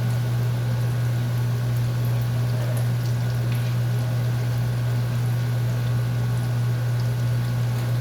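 Batter frying in hot oil: a steady sizzle with scattered small pops, over a loud, steady low hum.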